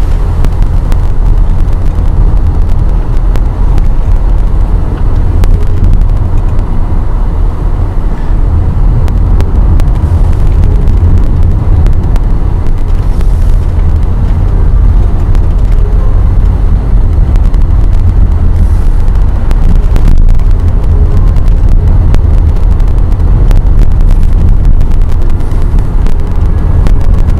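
Car cabin noise while driving: a loud, steady, deep rumble of the engine and tyres on the road.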